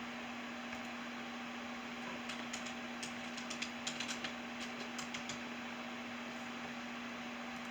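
Light typing on a computer keyboard: a scattering of quick key clicks for about three seconds starting two seconds in, over a steady electrical hum.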